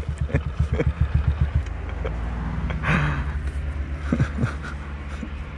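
A trail motorcycle's engine falls from a rev to a lumpy, pulsing run as the bike tips over on a dirt bank, then settles into a steady idle.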